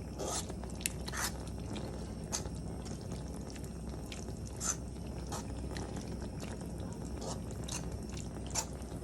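Scattered small clicks and scrapes from a pot of rundown (salt mackerel in coconut sauce) cooking on the stove, over a steady low hum.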